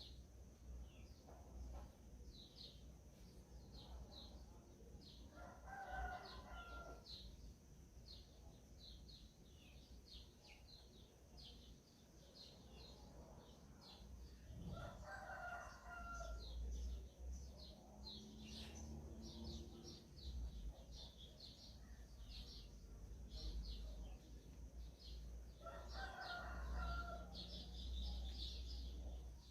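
Faint, busy chirping of small birds in short high notes, with a rooster crowing three times, about ten seconds apart.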